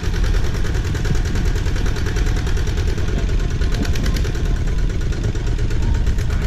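Single-cylinder diesel engine of a two-wheel tractor running steadily while towing a loaded passenger trailer over a bumpy dirt track, with a fast, even beat.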